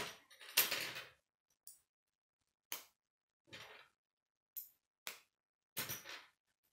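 Plastic K'nex pieces clattering as a hand rummages through a pile of loose parts, with several single sharp clicks of rods and connectors being fitted together.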